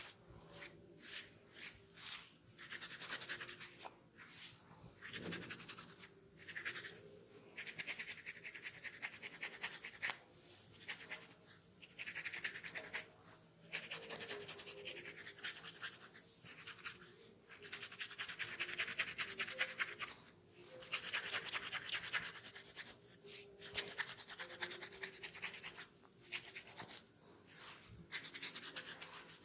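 Scalp being scratched through the hair to loosen dry dandruff: rapid, dense scratching strokes in bouts of one to three seconds with short pauses between them.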